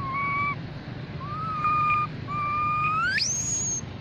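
Young macaque giving contact coos to call its group: three clear, whistle-like calls, each held on one pitch. The third is longer and sweeps sharply up into a high squeal near the end.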